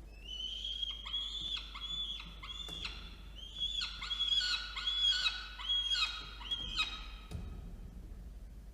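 Peregrine falcon calling: a series of about a dozen arched notes, roughly two a second, that stops about seven seconds in.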